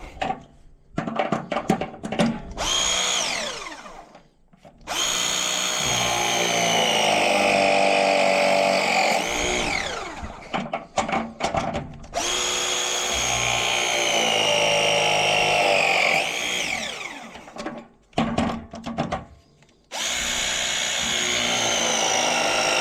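Battery-powered press tool crimping copper water-line fittings. Three cycles of several seconds each: a steady motor whine that glides in pitch as it starts and stops, with short stuttering bursts between the cycles.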